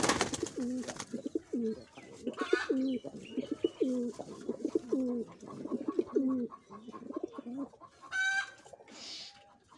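Several Giribaz pigeons cooing over and over, overlapping low coos, with a brief burst of wing flapping at the start and a short higher call near the end.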